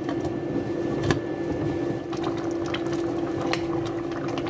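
Pot of mung bean soup boiling, bubbling over a steady low hum, with a sharp clink of the glass lid against the steel pot about a second in and a few lighter clicks later.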